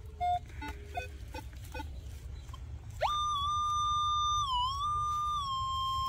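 Metal detector's electronic signal tone: after a few faint short blips, a loud steady beep starts about halfway through and holds, dipping briefly and stepping down and back up in pitch as the coil sweeps over a target.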